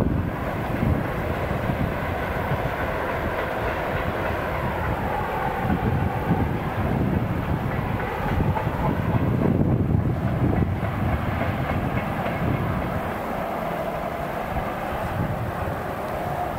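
Long freight train of tank wagons rolling along broad-gauge track, a steady rumble of wheels on rail with some clatter.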